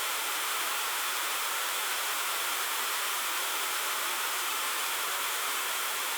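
A steady, even hiss with no other events in it.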